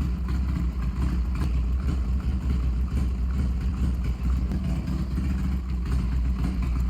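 2003 Harley-Davidson Sportster XL1200S's air-cooled 1200cc Evolution V-twin idling steadily, with the clutch being tested after new levers were fitted.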